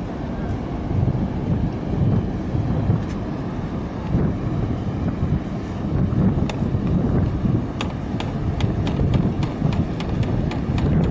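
Low, gusty rumble of wind buffeting the microphone. From about the middle on, a run of light sharp clicks comes about two or three times a second.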